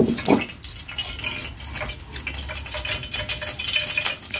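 Oil heating in a steel pot on a portable gas stove, sizzling with fine crackles that grow denser over the seconds. A brief louder knock or scrape comes right at the start.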